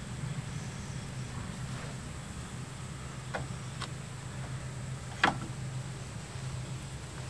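A few short metallic clicks of hand tools and bolts on brake parts, two light ones and then a louder one near the end, over a steady low hum.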